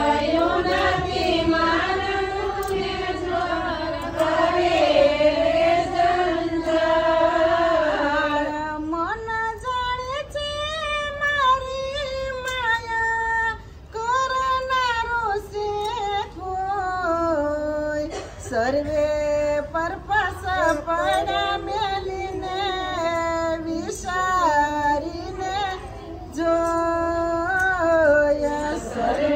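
A woman singing unaccompanied: a slow melody of long held, wavering notes, then more ornamented phrases with short breaks for breath.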